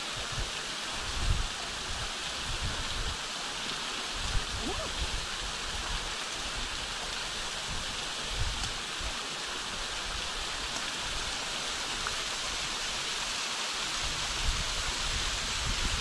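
Small waterfall, thin streams of water splashing down a rock face: a steady rushing hiss with occasional low bumps.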